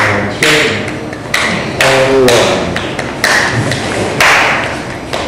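Percussion accompaniment for a dance exercise: sharp struck beats, roughly two a second in an uneven pattern, each ringing briefly, some with a short bending tone.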